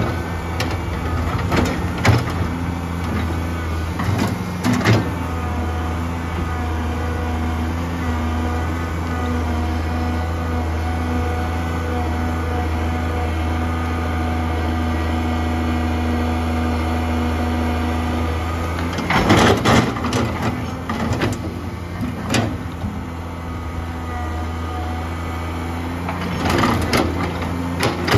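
1987 Komatsu PC200-3 hydraulic excavator's diesel engine running steadily under digging load as the bucket tears out tree stumps and roots. Clusters of knocks and scraping from the bucket working earth and roots come in the first few seconds, again about two-thirds of the way through, and near the end.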